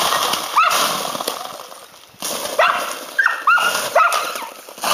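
A dog yipping and whimpering in about six short, high cries over a steady rushing hiss.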